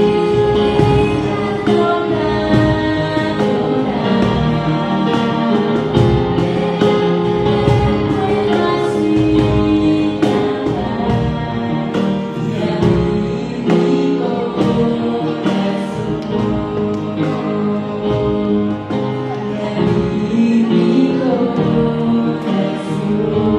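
A man and a woman singing a duet through microphones, with a cajón struck by hand keeping the beat.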